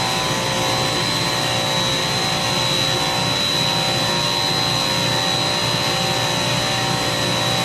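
Chiller compressors running steadily: an even mechanical hum with a steady high-pitched whine over it.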